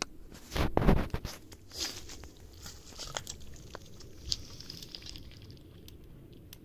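Cats eating, with chewing, crunching and small clicks. A louder rustling knock comes about a second in.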